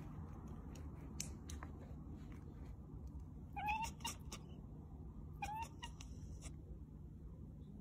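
Long-haired cat meowing twice, two short calls about halfway through, with faint clicks before them.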